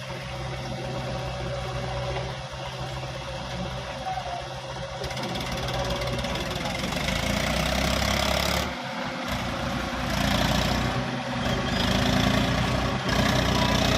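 Diesel engines of a backhoe loader and tractors running steadily, the engine note changing abruptly a few times.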